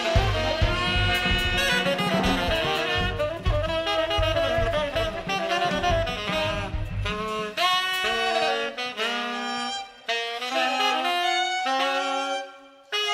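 Two tenor saxophones improvising free jazz together, over a drum kit for the first half; the drums drop out about seven seconds in, leaving the two saxophones playing held notes broken by short pauses.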